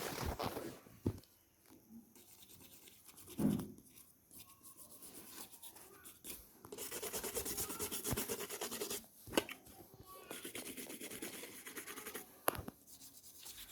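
A small brush scrubbing a phone, in two spells of fast back-and-forth strokes, with a few knocks and clicks in between.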